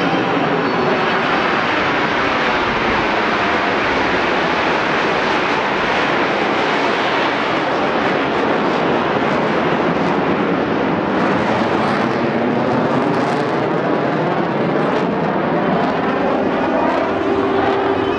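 A formation of Aermacchi MB-339 jet trainers passing, their turbojets making a steady, continuous jet noise. The sound has a slowly sweeping, phasing quality as the aircraft move through the sky.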